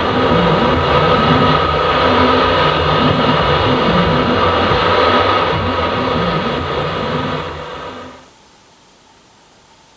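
Heighway Pinball Alien machine's sound effects through its speakers: a dense low rumble with steady higher tones, fading out near the end and leaving a faint hiss.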